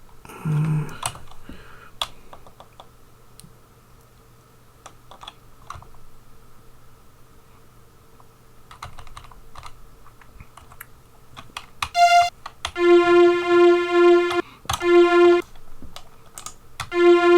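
Computer keyboard keys clicking as notes are entered in the tracker, then about twelve seconds in the classic Amiga Soundtracker string sample plays back: the same held note sounding four times with short breaks.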